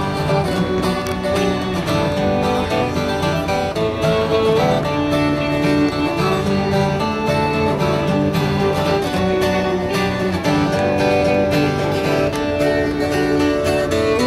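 Fiddle and strummed acoustic guitar playing a lively folk tune together, an instrumental passage with no singing.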